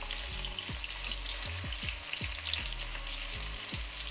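Sliced onion frying in hot vegetable oil in a nonstick pan: a steady sizzle with fine crackling, as a silicone spatula stirs it. Low thumps, two or three a second, run underneath.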